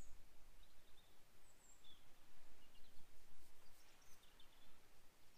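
Faint outdoor ambience: a steady low rumble with a few brief, high bird chirps scattered through.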